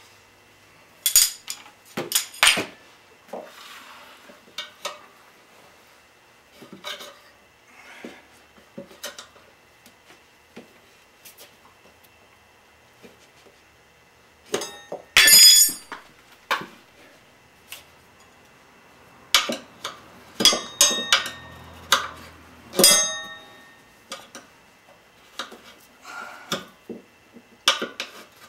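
Metal tire irons clinking and scraping against a spoked motorcycle wheel's rim while levering the bead of a stiff Metzeler tire over it. Scattered sharp clinks, loudest about halfway through, with a busy cluster a little later.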